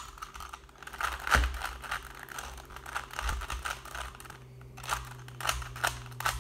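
Plastic Rubik's Cube being twisted by hand, its layers turning with quick, irregular clicks and clatter.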